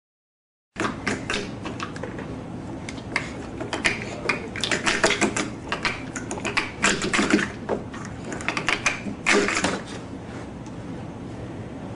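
Plastic sport-stacking cups clattering as they are rapidly stacked up and down by hand: a dense, irregular run of light clicks and rattles starting about a second in and stopping about two seconds before the end.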